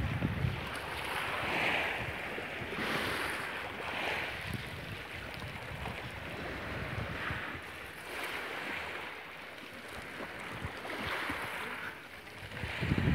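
Small sea waves lapping and washing over a pebble shore, the hiss swelling every second or two. Low wind rumble on the microphone at the start and again near the end.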